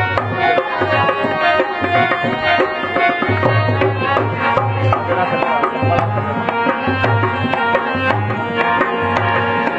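Rajasthani folk music accompanying a kathputli puppet show: a hand drum plays a steady repeating beat under a melody of several instruments.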